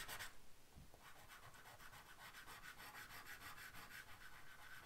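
Soft chalk pastel stick rubbed back and forth on paper in quick repeated strokes, faint. The strokes stop briefly just after the start and pick up again about a second in as a new stick is worked over the drawing.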